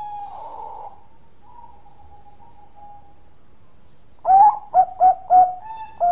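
Zebra dove (perkutut) cooing. A fast run of short coo notes ends just after the start, followed by a lull. About four seconds in comes a loud burst of four staccato coos, the first rising in pitch, and a single coo near the end.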